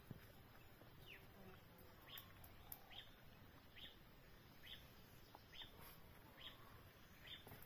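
A bird calling faintly: a short, falling chirp repeated about once a second.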